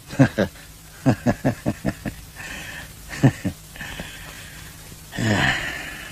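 A man laughing in a run of short bursts, with a longer laugh near the end.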